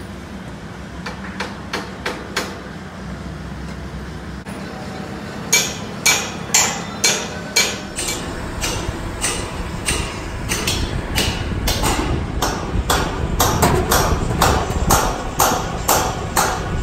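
Hammer blows during steel roller-coaster track installation: a few light taps, then from about five seconds in a steady run of sharp strikes, about two a second, over a low steady machinery hum.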